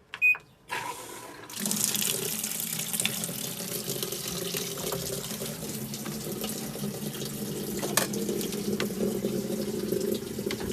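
A short electronic beep from the Sharp washing machine's control panel, then from about a second and a half in, water rushing steadily into the drum through the inlet. The newly replaced drain valve now holds shut, so the water stays in the tub instead of leaking out the drain pipe.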